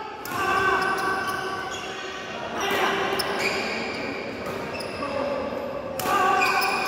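Badminton rally on an indoor court: racket strikes on the shuttlecock and shoes squeaking on the court floor, echoing in the hall.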